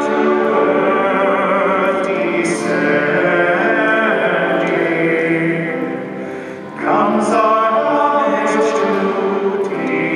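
Sacred music: voices singing a hymn in long held notes, with a short lull about six seconds in before the next phrase begins.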